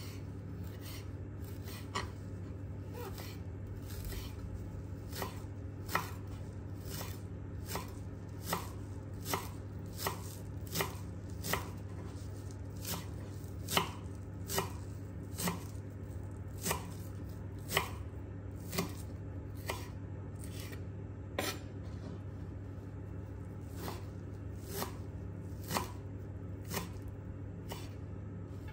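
Chef's knife chopping fresh dill on a wooden cutting board: sharp, irregular knocks of the blade meeting the wood, roughly one or two a second, over a steady low hum.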